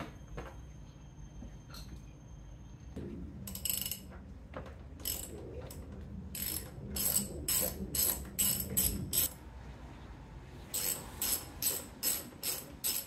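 Socket ratchet wrench clicking in quick back-and-forth strokes as a bolt under a motorcycle seat is undone. The strokes start about three seconds in and come in runs of about three a second.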